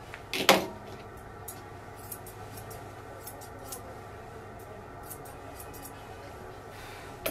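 Grooming shears snipping the coat on a toy poodle puppy's face in light, irregular cuts. A loud brief sound comes about half a second in.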